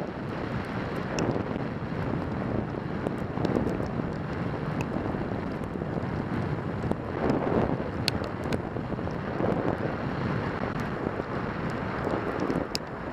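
Wind rushing and buffeting over the microphone of a camera on a motorcycle moving at road speed, a steady roar with a few sharp ticks.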